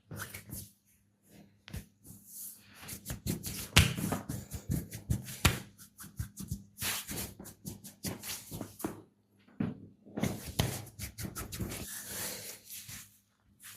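Hands massaging bare skin: rubbing strokes broken by irregular sharp slaps and snaps, the loudest about four seconds in.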